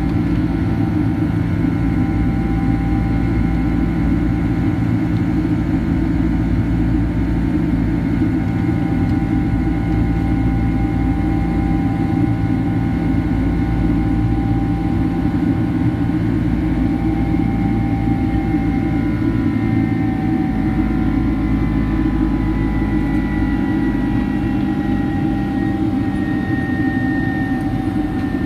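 Steady jet-engine noise inside the cabin of a Boeing 767-300ER climbing after takeoff, heard from a seat beside the wing. A deep rumble sits under several whining fan tones, which drift slightly lower in pitch over the last ten seconds or so.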